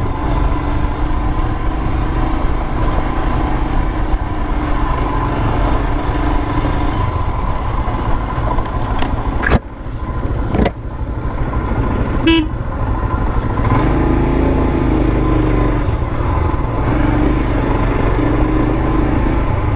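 Royal Enfield Himalayan's single-cylinder engine running while riding over a rough dirt track, with wind noise on the microphone. About halfway through come two sharp knocks with a brief dip in the sound, and soon after a very short high beep.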